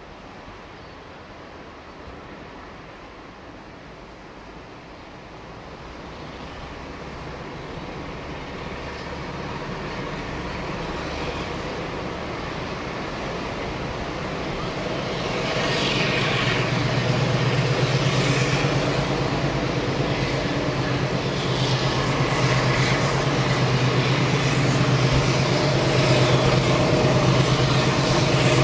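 Alco diesel locomotive approaching under power, its engine growing steadily louder and then running loud and steady from about halfway, with a fluttering high hiss over the low engine note. Thick black exhaust shows the engine working hard under load.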